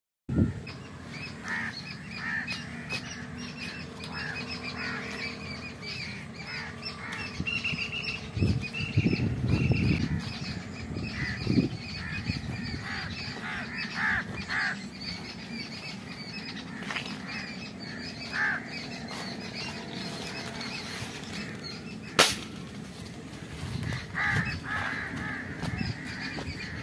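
Many birds calling and chattering in short chirps throughout, with one sharp crack about three-quarters of the way through.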